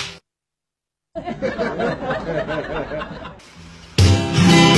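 After a short dead silence, a person chuckles and giggles in quick bursts for about two seconds. Acoustic guitar music with hard strums comes back near the end.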